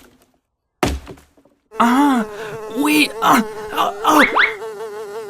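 A cartoon axe chop lands as a single sharp impact about a second in. From just under two seconds, a loud, steady, insect-like buzzing drone follows, overlaid with warbling tones that rise and fall.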